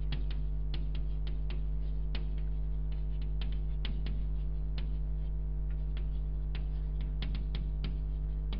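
Chalk on a blackboard, many short irregular taps and scrapes as words are written, over a loud, steady electrical mains hum.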